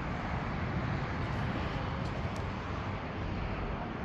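Steady outdoor background noise, a low rumble with no distinct event.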